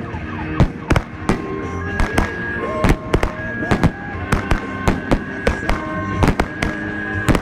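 A 45 mm firework battery (cake) firing shot after shot, about three sharp bangs a second, as its shells launch and break overhead.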